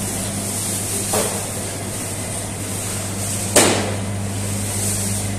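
Steady low machine hum with a faint high hiss, broken by a soft knock about a second in and a sharper knock with a short ringing tail about three and a half seconds in.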